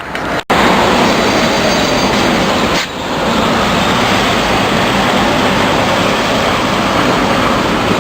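Steady rushing noise of busy street traffic, broken off sharply for an instant about half a second in and dipping briefly near 3 s.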